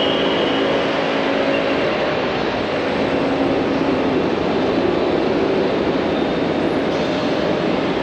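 Light road traffic in an airport's pick-up and drop-off lanes: a steady wash of car engine and tyre noise as vehicles pass, with a low engine hum that fades out about two seconds in.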